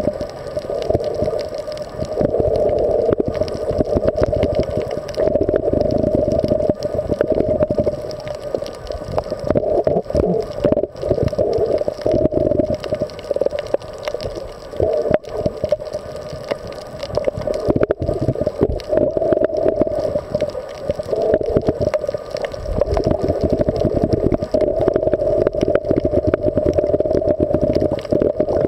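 Muffled underwater sound picked up by a submerged camera: a steady drone that swells and fades every few seconds, with constant crackling and a low rumble.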